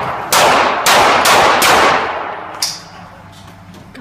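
Four quick shots from a Smith & Wesson M&P AR-15 rifle, about two a second, each trailing off in echo. A much fainter, high click follows a little past halfway.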